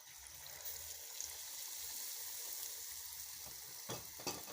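Batter-coated potato slices (bajia) frying in hot oil: a crackling sizzle that swells within the first second and keeps on. Two short knocks near the end.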